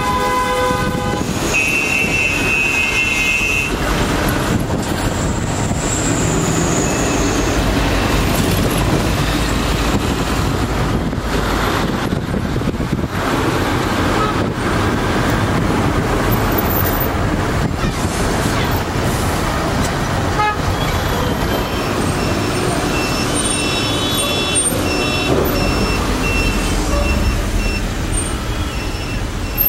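City street traffic: vehicle engines and road noise, with car horns honking, one right at the start, another soon after and fainter ones later.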